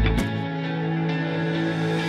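Background music: held, steady chords, with the deep bass and beat dropping out shortly after the start.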